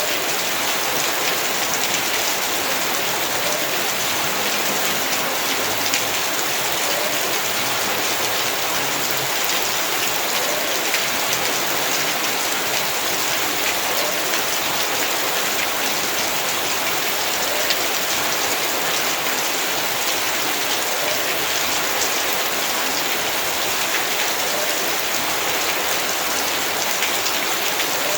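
Heavy rain falling steadily onto surfaces, a dense, even hiss flecked with individual drop impacts.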